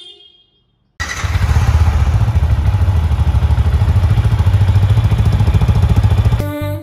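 Yamaha R15M's 155 cc single-cylinder engine running at a steady idle through its exhaust, a loud, even run of quick exhaust pulses. It starts sharply about a second in and stops shortly before the end.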